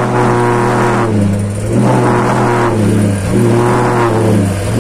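Homemade LPG-fuelled valveless pulse jet engine running with a deep, loud droning tone, its pitch wavering and surging roughly once a second, the sign of an unsteady, not-yet-settled resonance during start-up.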